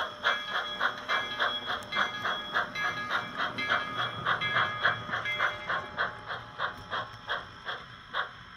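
Steam chuffing from a sound-equipped HOn3 model steam locomotive, beating steadily about three times a second and fading away near the end.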